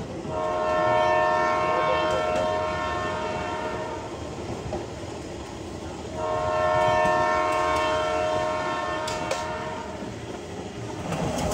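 Commuter train's horn sounding two long blasts of several notes together, each about four seconds, over the steady rumble and clatter of the train running on the track.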